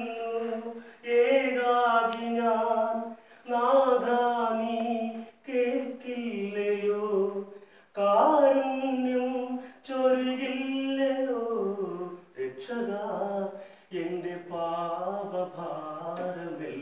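A man singing solo, unaccompanied, in long held notes grouped in phrases of one to two seconds with short breaks between them.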